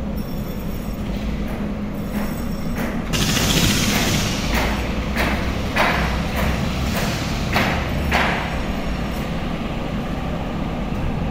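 Repair-shop background noise: a steady low hum, a stretch of hiss starting about three seconds in, and several short noisy bursts a few seconds later.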